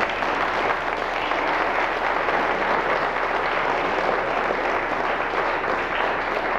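An audience breaks into steady applause, many hands clapping at once.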